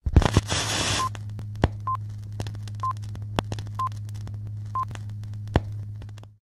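Old-film countdown-leader sound effect: a steady low hum with scattered crackles and pops, and a short high beep about once a second, five in all. It opens with a burst of hiss in the first second and cuts off suddenly near the end.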